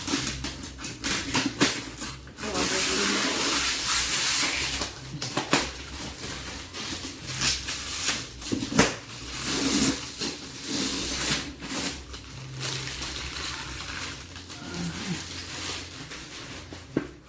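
Toy packaging being handled and opened: cardboard and plastic rustling and scraping, with scattered knocks and clicks, and a longer stretch of loud rustling about three seconds in.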